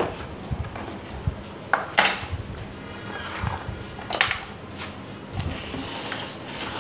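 Unboxing handling noise: a plastic router and its antennas knocking against a molded pulp tray and cardboard box, with rustling and scraping between a few sharp clicks and knocks, the loudest at the start and about two seconds in.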